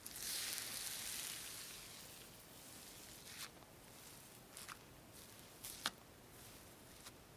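A crunchy material being squeezed close to the microphone: a hissing crumble for about two seconds, then a handful of separate sharp crackles.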